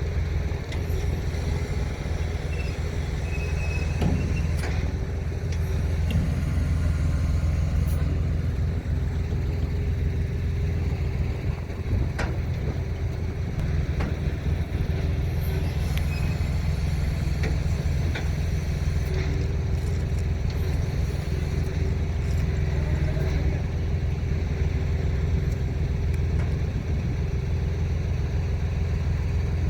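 Diesel engine of a heavy mobile crane running steadily during a lift, a constant low drone with a few sharp clicks scattered through it.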